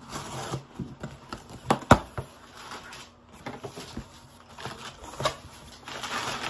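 Cardboard shipping box being cut open and handled: scraping and rustling of cardboard and packing tape, with a few sharp knocks, the loudest two close together about two seconds in.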